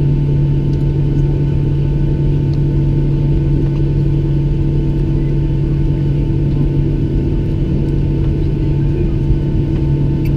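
Cabin noise of a Boeing 737-700 taxiing: its CFM56-7 engines at idle give a steady, loud drone with a constant low hum and a few fixed tones.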